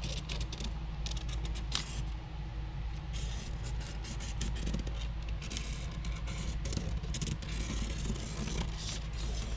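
Irregular scratching and small clicks of a marker traced along the edge of a plastic panel against a sheet of ABS plastic, over a steady low hum.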